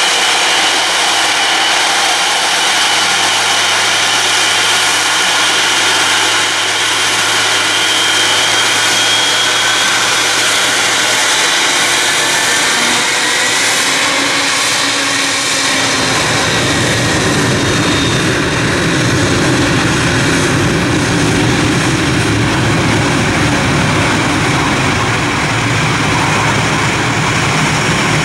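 Saudi Arabian Airlines Boeing 777's jet engines whining at taxi power as it rolls past close by. About halfway through, a deep rumble joins in under the whine.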